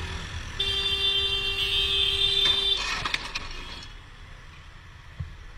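A vehicle horn held for about two seconds, one steady note that cuts off sharply. It is followed about three seconds in by a short clatter of knocks as a scooter tips over onto the asphalt, over low traffic rumble.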